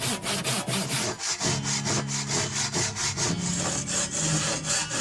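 Hand saw cutting through wood in quick, even back-and-forth strokes, a few a second.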